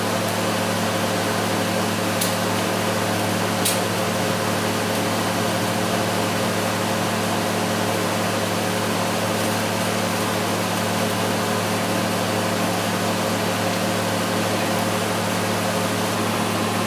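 TIG welding arc from a Miller Dynasty 200, held steadily as a repair weld is built up in the ground-out fatigue crack of a front axle knuckle. It gives a continuous hum over a steady hiss.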